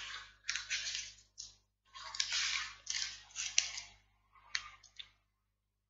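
Irregular rustling, crunching noises in short bursts, with a couple of sharp clicks, stopping about five seconds in.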